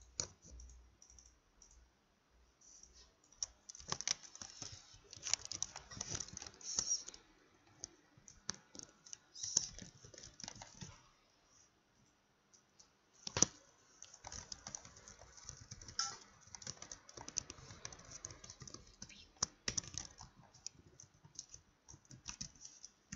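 Typing on a computer keyboard: irregular runs of keystrokes with short pauses, and one louder, sharper click about halfway through.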